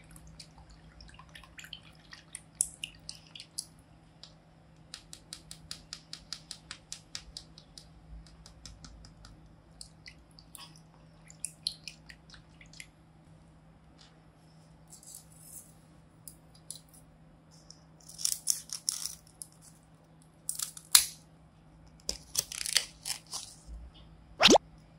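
Light taps and clicks on a clear taped plastic pouch of liquid, with a quick run of about four taps a second. Louder crinkling and rustling of paper and plastic follows later, and a short rising squeak comes just before the end.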